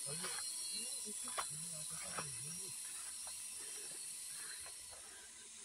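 Forest ambience with a steady high insect hiss, a few sharp snaps of walking through undergrowth, and a man's faint low voice murmuring briefly in the first few seconds.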